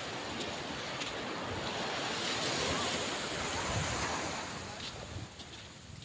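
Small surf washing up on a sandy beach, swelling about two seconds in and easing off near the end.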